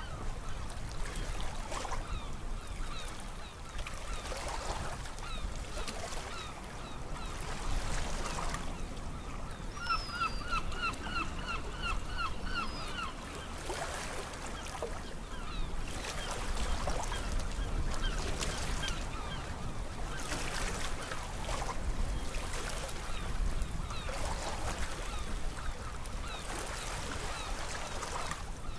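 Sea waves washing in and out, the noise swelling and easing every few seconds. About ten seconds in, a bird calls a quick run of short, repeated notes for about three seconds.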